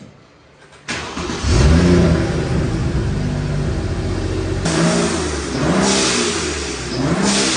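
BMW N55 turbocharged straight-six revved in a series of blips, its pitch rising and falling each time. A Turbosmart vent-to-atmosphere blow-off valve lets out a loud hissing whoosh three times in the second half.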